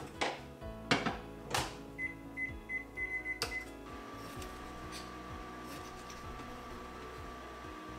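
Microwave oven being set and started: three knocks, then a string of short high beeps as its buttons are pressed, a click, and from about four seconds in a steady hum as it runs. Soft background music plays throughout.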